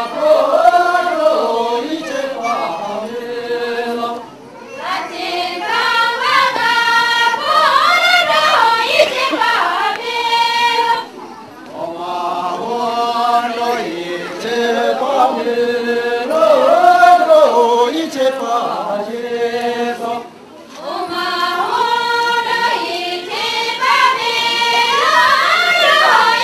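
A group of voices singing a traditional dance song together in long phrases, with three brief pauses between phrases.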